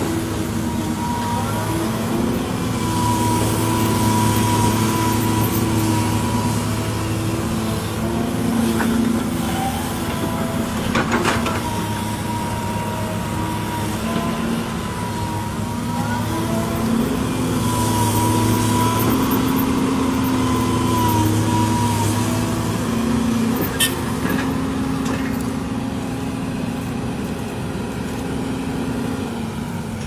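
Tracked hydraulic excavator's diesel engine running under load while digging, its note stepping up and down as the hydraulics work, with a whine that comes and goes. A sharp clank about eleven seconds in and another near the end of the second third.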